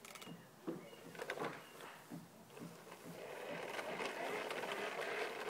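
Fisher-Price plastic toy bubble lawnmower clicking and rattling as it is pushed across grass. From about halfway through, a steady rushing noise rises and grows louder.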